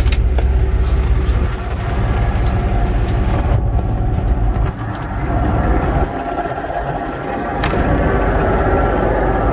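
2010 Kenworth T660's diesel engine idling steadily, with a sharp click near the end.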